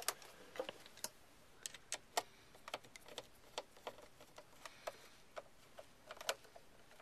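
Screwdriver driving the screw back into the plastic belt cover plate of an Oreck upright vacuum: light, irregular clicks and ticks, about one or two a second.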